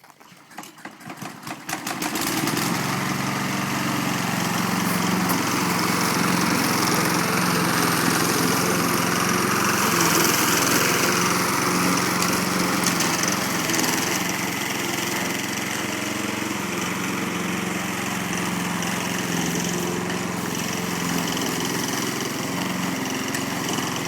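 Walk-behind petrol lawn mower engine pull-started. It sputters and catches within about two seconds, runs steadily, then cuts off abruptly at the very end.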